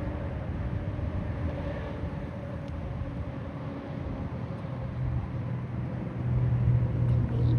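A vehicle engine's low rumble with a steady hum, getting louder from about five seconds in.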